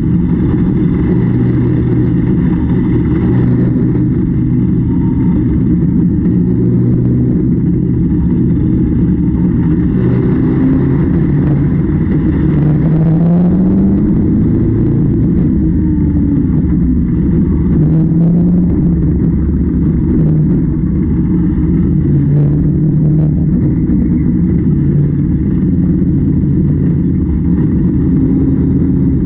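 Heavy farm machine engine running steadily under load, its pitch rising a few times as it speeds up.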